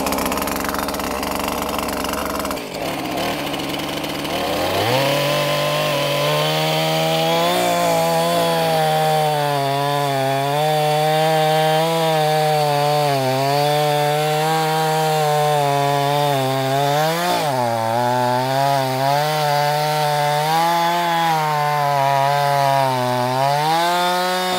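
Husqvarna two-stroke chainsaw cutting through a tree stump at ground level. It revs up to full throttle about five seconds in and holds there with small wavers in pitch as the chain bites. It dips briefly about two-thirds through and drops off at the very end.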